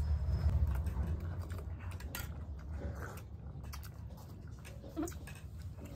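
Eating sounds: momos being chewed, with scattered small clicks and taps over a low steady rumble, and one short blip about five seconds in.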